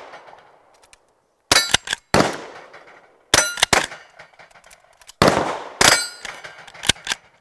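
.22 rimfire rifle shots, about seven in a loose string, several of them followed by the short clang of a steel plate target ringing from the hit.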